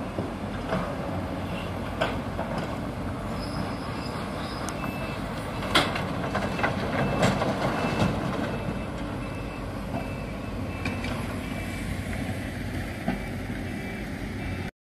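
Heavy machinery working: a steady low diesel rumble of excavators and dump trucks with occasional sharp knocks. A reversing alarm gives short, evenly spaced beeps through the middle. The sound cuts off suddenly at the end.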